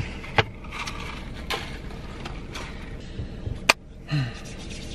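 A few sharp clicks and taps from hands moving things around inside a car, the loudest about three-quarters of the way through, over a low steady cabin hum. A short low voice sound follows just after the loudest click.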